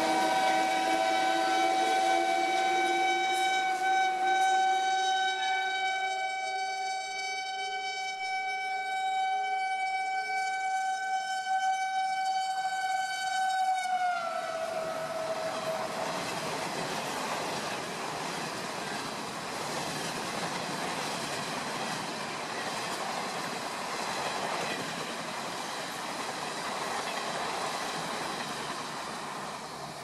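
A locomotive horn is held for about fourteen seconds as a train approaches at speed, its pitch dropping as the locomotive passes. Then comes the steady rush and rattle of the passenger coaches running through the station.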